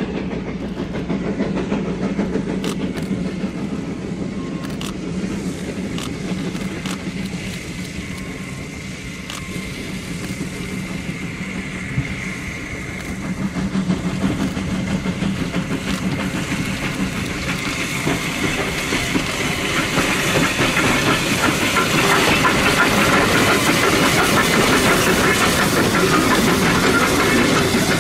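Narrow-gauge steam locomotive hauling a train of wooden passenger coaches, approaching and then passing close by. It grows louder over the second half as the engine and the coach wheels on the rails draw near.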